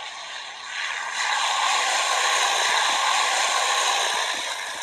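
An aircraft passing overhead: a rushing sound that swells over the first second or so, holds, and fades away near the end.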